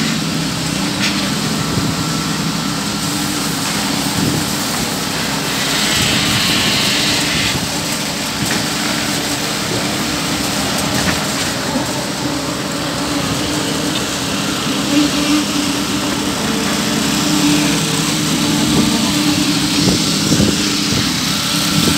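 Diesel engines of concrete mixer trucks and a concrete pump running steadily during a concrete pour: an unbroken engine drone with a constant low hum.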